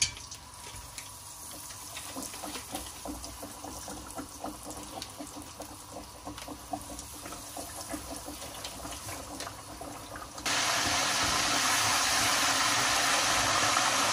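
A breaded chicken patty deep-frying in hot oil, crackling with many small pops. About ten seconds in, the sound jumps suddenly to a loud, steady sizzle.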